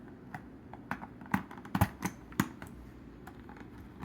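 Irregular light clicks and taps as small Hot Wheels die-cast toy cars and their plastic packaging are handled, the loudest a little under two seconds in.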